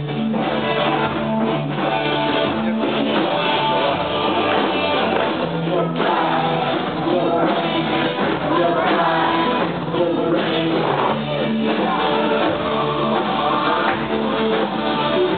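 Live band playing: amplified hollow-body electric guitar and keyboard, with singing.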